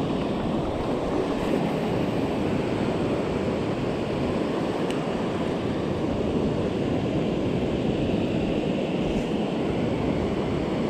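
Ocean surf breaking and washing over shallow sand, a steady rushing, with some wind on the microphone.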